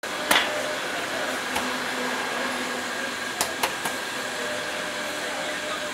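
Steady fan-like mechanical hum of a roadside food stall, with a few sharp knocks on top: a loud one right at the start and three in quick succession around the middle.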